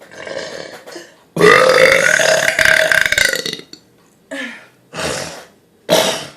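A woman's long, loud burp of about two seconds, its pitch rising and then falling, starting about a second and a half in after a shorter breathy sound. Three short bursts follow.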